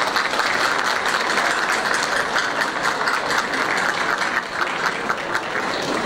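Audience and choir applauding, many hands clapping steadily together.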